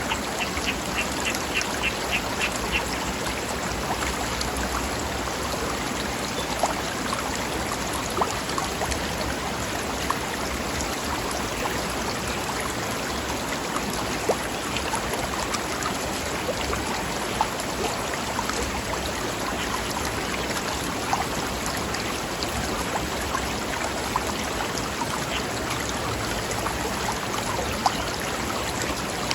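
River flowing over rocks: a steady rush of water with small splashes. A bird calls with a quick run of repeated high notes at the start and again at the very end.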